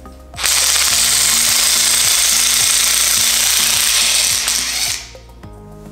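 Small handheld electric rotary tool running its bit against a rusty tubular steel golf-buggy frame, cleaning off rust. It starts about half a second in and stops about five seconds in.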